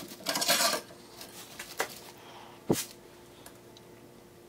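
Mild steel sword guard being worked onto the blade's tang by hand: a short scrape of metal on metal, a few light clicks, then one sharp knock near the middle.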